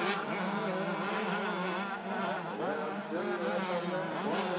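125cc two-stroke motocross bikes racing, their engines buzzing and revving up and down in overlapping rising and falling pitches as the riders work the throttle.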